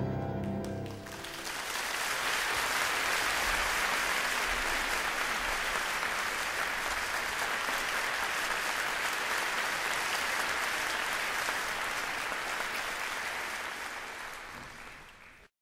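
The song's last chord dies away, and about a second in an audience starts applauding: dense, even clapping that carries on, fades near the end and cuts off suddenly.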